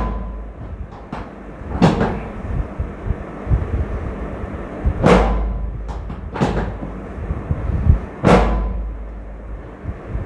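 Four dull thumps a second or more apart, with a few lighter knocks between them, from a patient's body being shifted and pressed against a treatment table during a chiropractic adjustment.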